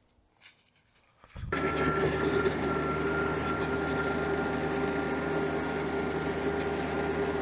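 Tractor engine running steadily, coming in abruptly a little over a second in after near silence, with a constant low hum and a steady whine above it.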